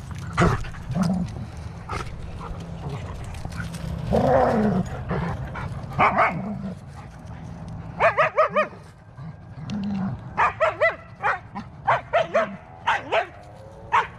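Dogs play-fighting, barking and yipping in short bursts that come thick and fast in the second half.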